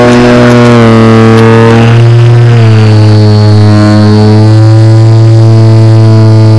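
Motor and propeller of an RC Edge 540T aerobatic plane, recorded from the on-board camera, running loud and steady. Its pitch drops about a second in and again around two and a half seconds as the throttle comes back, with a thin high whine above it.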